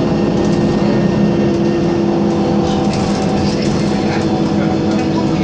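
Inside an Isuzu Citibus under way: the engine and drivetrain drone steadily, with a few held whining tones over road noise.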